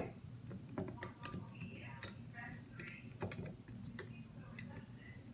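Faint, irregular small clicks and taps of a plastic loom hook against the pins of a Rainbow Loom as the rubber bands are worked off the loom.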